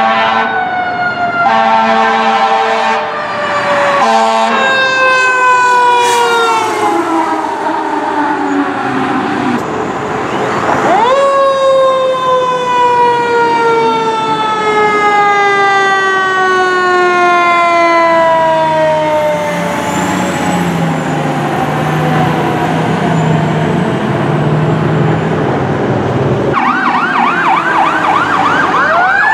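Fire truck responding with air horn blasts in the first few seconds over a siren whose pitch falls slowly. About eleven seconds in the siren winds up sharply and then coasts down for several seconds, like a mechanical siren. Near the end a fast electronic yelp siren starts.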